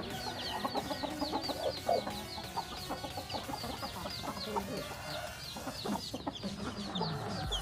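Domestic chickens clucking softly while feeding, over a fast, steady run of short, high, falling chirps, about five a second, that stops near the end.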